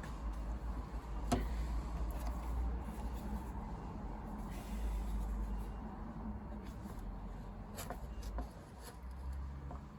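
Rubbing and scraping from work on a metal panel, with a sharp click about a second in and two more near the end.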